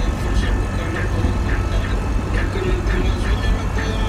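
Road noise inside a moving car's cabin: a steady low rumble of engine and tyres, with scattered light ticks and rattles.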